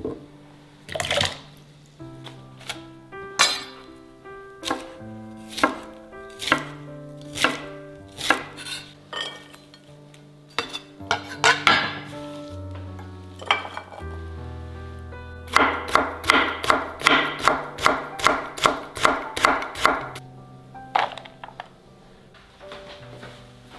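Kitchen knife chopping on a wooden cutting board: a fast, even run of strokes, about four a second, for several seconds past the middle. Before it come scattered single knocks and clinks of kitchenware. Soft background music plays throughout.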